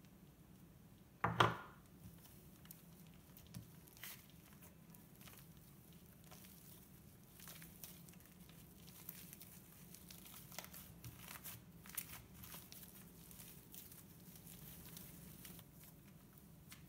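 Soft blue butter slime being folded and squeezed by hand as shaving cream is mixed in, giving a steady run of faint sticky crackles and small pops. A short loud burst comes about a second in.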